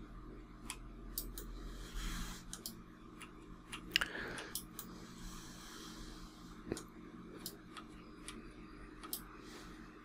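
Faint, irregular clicks of a computer mouse and keyboard, a dozen or more, over a low steady hum, with a soft mouth noise about four seconds in.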